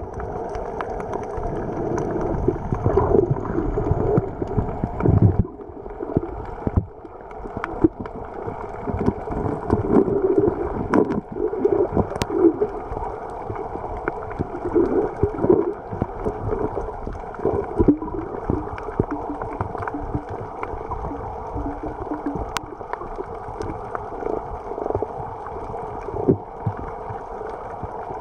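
Water sloshing and gurgling around a camera held underwater, rising and falling unevenly, with a few sharp clicks.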